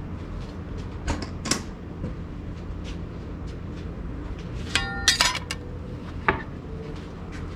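Stainless steel barbecue tongs and spatula clinking as they are handled: a few sharp clicks, then a quick cluster of metallic clinks with a brief ring about five seconds in, and one more click a second later.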